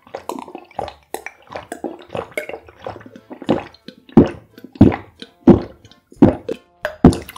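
Gulping and swallowing as a drink is downed in long draughts from a glass mug, one gulp after another. The gulps grow louder about halfway through, then come roughly every two-thirds of a second.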